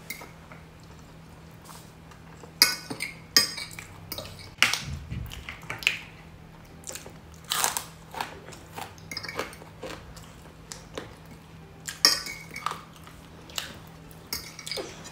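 Close-up eating sounds: irregular chewing and crunching, with occasional clinks of cutlery against dishes.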